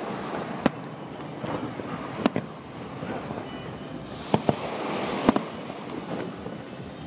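Aerial firework shells bursting: about five sharp bangs at irregular intervals, the loudest about five seconds in after a brief hiss.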